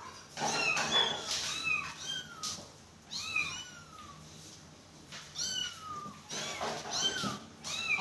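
Kitten meowing over and over: short, high-pitched calls that rise and fall, about a dozen of them, with a brief lull partway through.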